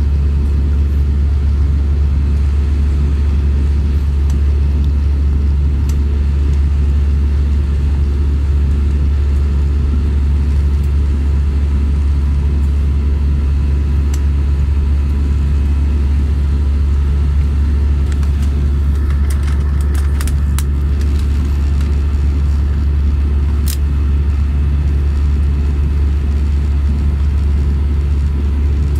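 Steady low rumble of engine and airflow noise inside an Airbus A320-200's cabin in flight, with a few faint clicks about two-thirds of the way in.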